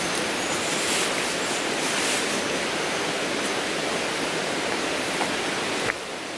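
Steady rushing of running water, an even hiss with little low rumble, dropping abruptly in level shortly before the end.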